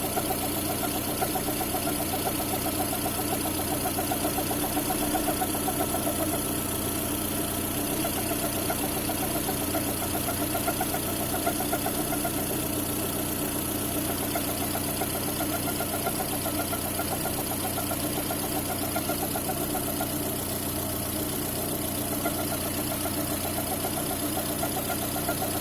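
Car engine idling steadily, with a constant whistle over it that the owner suspects comes from the timing belt.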